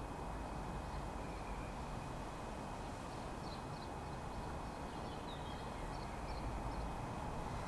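Quiet outdoor ambience: a steady low background rumble, with a few faint bird chirps in the middle.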